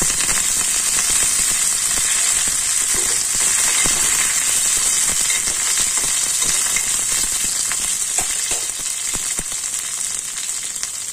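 Fresh curry leaves sizzling loudly in hot oil with mustard seeds and chillies for a tadka tempering, with scattered crackles and a spatula stirring. The sizzle eases gradually toward the end as the pan, its gas turned off, cools.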